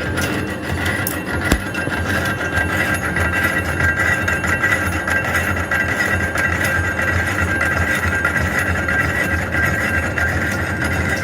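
Old metal lathe running steadily, a low rumble under a steady high whine, with one sharp click about a second and a half in.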